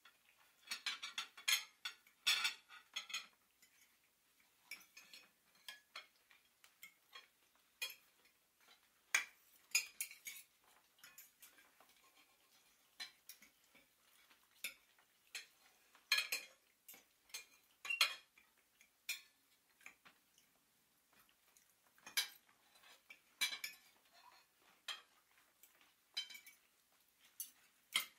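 Cutlery and china plates clinking and clattering: irregular light clinks, a few at a time, with brief clusters about a second in, near 10 s, 16 s and 23 s.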